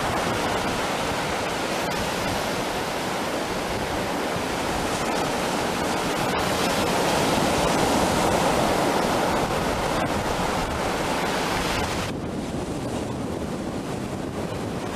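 Ocean surf breaking and washing up a sandy beach, a steady rushing noise that swells a little midway and turns duller about twelve seconds in.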